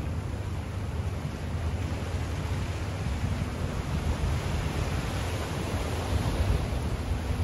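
Steady rush of bay water, small waves washing onto shore rocks, with wind rumbling unevenly on the microphone; the wash swells a little about halfway through.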